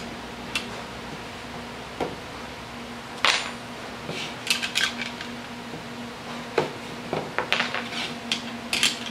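Spring-steel miter clamps being sprung open with a clamp spreader, popped off a wooden frame's corners and set down on the workbench. Scattered sharp metallic clicks and clinks, the loudest about three seconds in and a quick run of them near the end, over a steady low hum.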